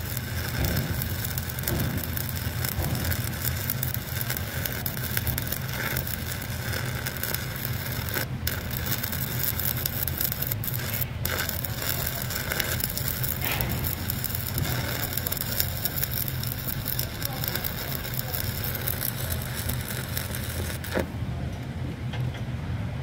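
Shielded metal arc (stick) welding with a 1/8-inch Lincoln Excalibur 7018 electrode, running an overhead fillet weld: a steady crackling, frying hiss from the arc that stops sharply near the end as the arc is broken. A steady low hum runs underneath.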